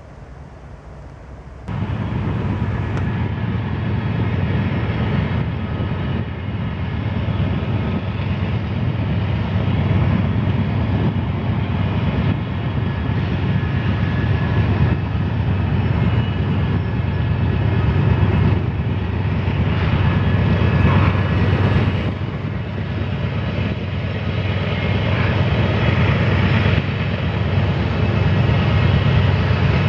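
Canadian Pacific diesel-electric freight locomotives working hard as an eastbound train climbs the grade. The engines make a loud, steady, deep drone with thin steady higher tones above it. The sound cuts in sharply about two seconds in, after faint wind noise.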